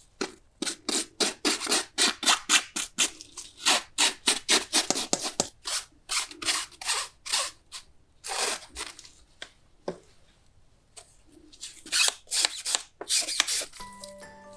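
Quick back-and-forth scrubbing strokes, a brush or cloth rubbed hard over a surface during cleaning of a clothes dryer, about four strokes a second. The scrubbing comes in runs broken by short pauses, the longest about two thirds of the way in.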